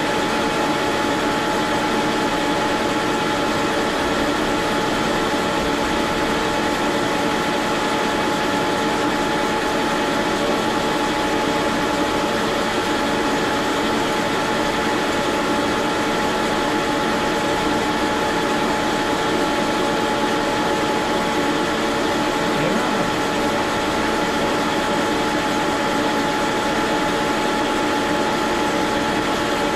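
Metal lathe running steadily under power feed, a constant gear whine over the noise of the cut, as the chuck-held cutter works a steel part clamped in a vise on the cross slide under dripping cutting oil.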